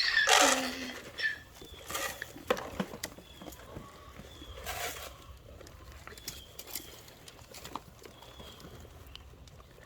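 Farmyard sounds: a short animal call in the first second, then a few scattered rustles and knocks with faint bird chirps, dying down to quiet outdoor background.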